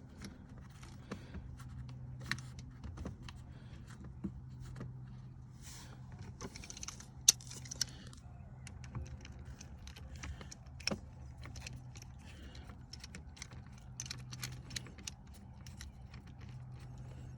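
Small clicks, clinks and rattles of a Phillips screwdriver and screws working against a plastic trim panel as the panel is screwed back in, with one sharper click about seven seconds in. A steady low hum runs underneath.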